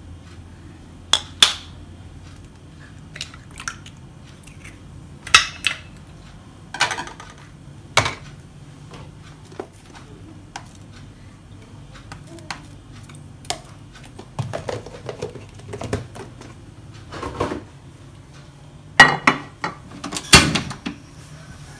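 Kitchenware being handled: scattered clinks and knocks of utensils against bowls, a plastic jug and pans, a few sharper ones near the end, over a faint steady low hum.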